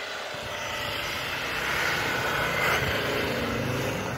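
A 4x4 SUV's engine running as it ploughs through deep snow with its tyres churning and spraying snow, with a hiss over it, getting louder as it comes close.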